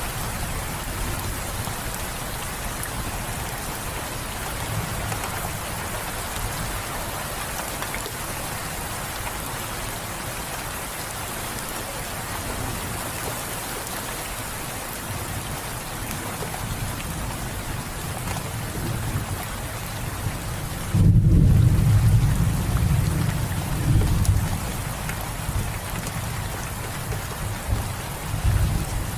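Steady rain falling, an even hiss. About two-thirds of the way through, a low rumble of thunder comes in suddenly, swelling for a few seconds and fading out in smaller rolls.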